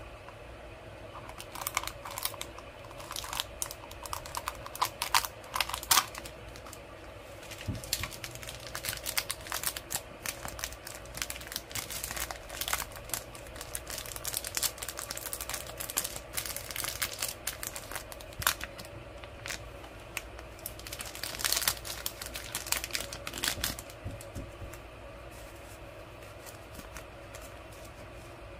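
Crinkling of a clear plastic toy sachet being handled and opened, in irregular crackles that die down near the end.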